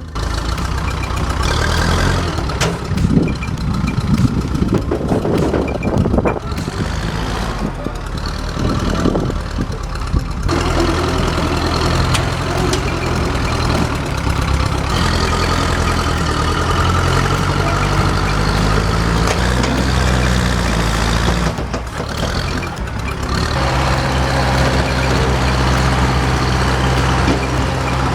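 Diesel engine of heavy earth-moving equipment running under load, its pitch rising and falling as the machine works, with abrupt shifts in the engine sound twice, about ten and twenty seconds in.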